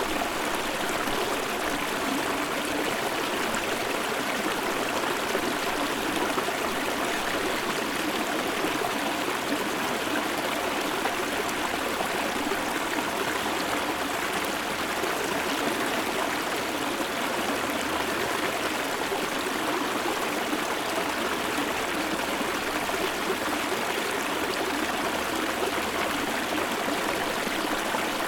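Shallow river stream flowing over stones close up, a steady babbling and trickling rush of water. Faint low rumble underneath.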